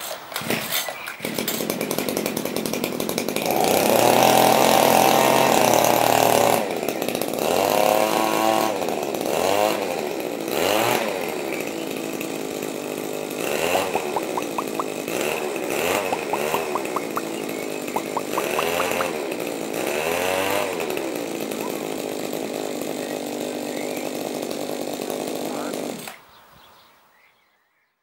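A small two-stroke engine revving: held at high revs for a couple of seconds about four seconds in, then blipped up and down in pitch again and again. It fades out near the end.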